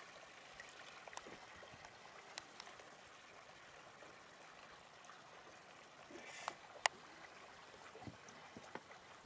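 Faint trickling and lapping of water, with a few sharp clicks scattered through it, the loudest about two-thirds of the way in.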